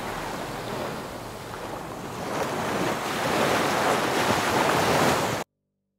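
Surf sound effect of waves washing, swelling louder after about two seconds, then cutting off abruptly near the end.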